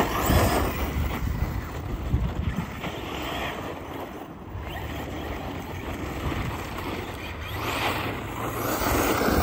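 Arrma Fireteam 6S radio-controlled car running across cracked asphalt, its brushless motor and tyres making a steady noise that grows louder near the end, with wind on the microphone.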